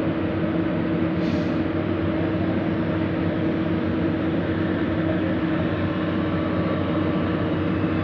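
Heavy diesel engine running steadily, with a constant hum over the engine noise and a brief faint hiss about a second in.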